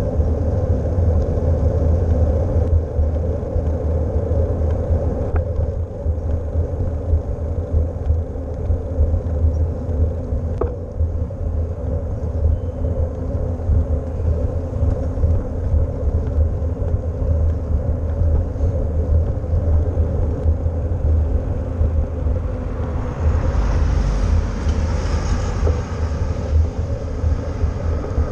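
Wind buffeting a helmet- or bike-mounted GoPro's microphone, mixed with a bicycle's tyre noise on pavement during a ride: a steady low rumble. About three-quarters of the way through, a hiss swells for a few seconds and fades.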